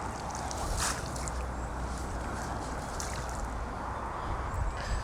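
Water sloshing and dripping over a steady low rumble, with a light click about a second in.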